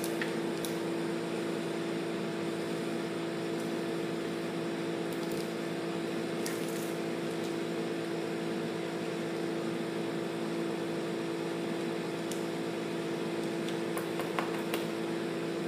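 Steady mechanical hum at a constant pitch, with a few faint light clicks now and then.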